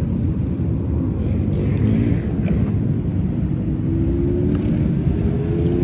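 Wind rumbling on the phone's microphone over street traffic, with a motorbike engine revving up and rising in pitch over the last couple of seconds.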